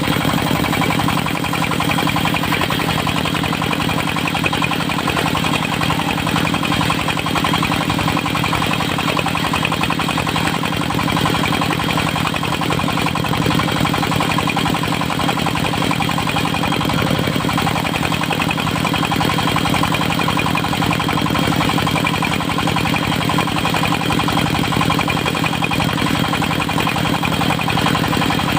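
Engine of a portable circular-saw sawmill running steadily at a constant speed, with a steady high tone above it.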